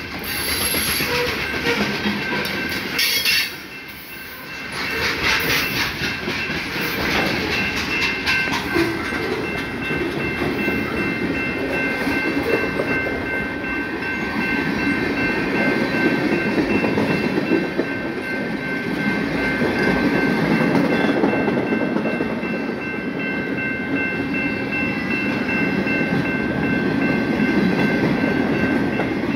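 Freight cars rolling past close by: a steady rumble of wheels on rail, with clickety-clack as wheels cross rail joints. A few steady high-pitched tones ring over it.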